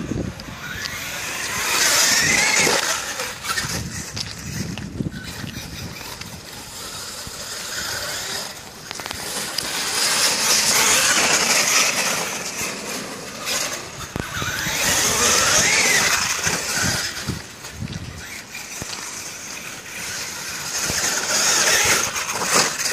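Traxxas E-Revo brushless RC truck's electric motor whining up and down in about four bursts as it speeds up and slows, with its tyres hissing through snow and slush.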